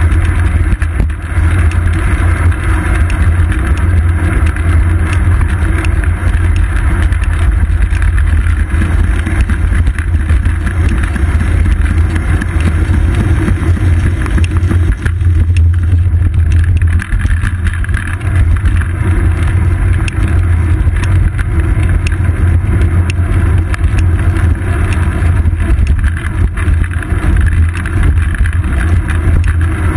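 Steady low rumble of wind and road vibration on a seat-post-mounted GoPro Hero 2 as a bicycle rolls along the road.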